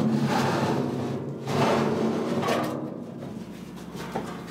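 Sheet-steel forge hood being shifted and set onto a coal forge: a sharp metallic knock right at the start, then about three seconds of metal scraping and rubbing that fades toward the end.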